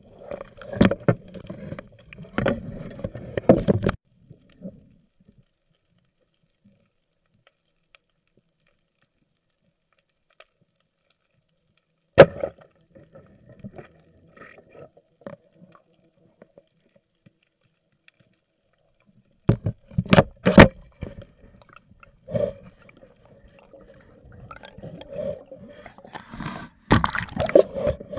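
Water sloshing and gurgling around an underwater camera, in bursts for about the first four seconds and again from about twenty seconds on, with long stretches of near silence between. A single sharp, loud knock comes about twelve seconds in.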